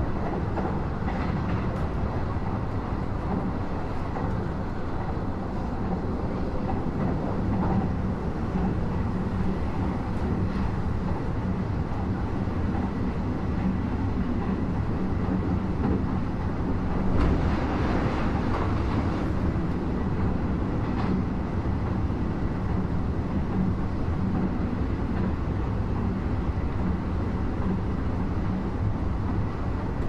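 Interior of a Nishitetsu Tenjin-Ōmuta Line limited express train running along the line: a steady rumble of wheels and running gear with a low hum and a few faint clicks. About 17 seconds in there is a brief louder rush.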